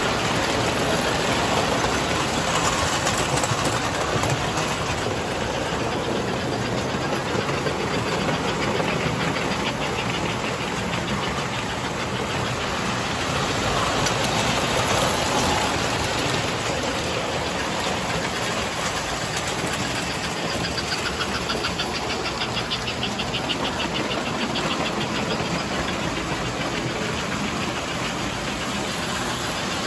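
Several O gauge three-rail model trains running together: a steady whir and rumble of their electric motors and wheels rolling over the track, with a run of quick rhythmic clicking about two-thirds of the way through.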